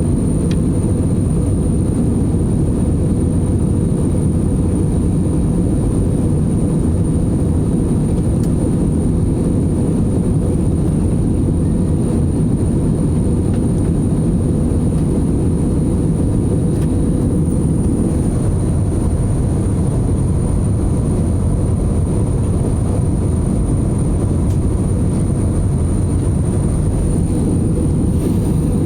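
Steady noise of a jet airliner in flight heard inside the passenger cabin, a low even rush of engines and airflow, with a thin steady high whistle over it.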